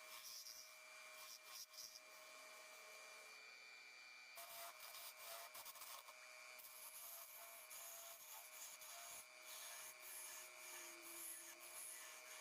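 Faint, continuous rubbing and scraping of a tool against wood, like sanding or rasping, over a steady faint hum.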